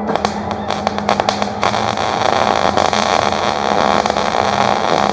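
Wire-feed (MIG) welding arc laying a bead on steel angle iron: the arc stutters on and off for about the first second and a half, then settles into a steady crackling sizzle.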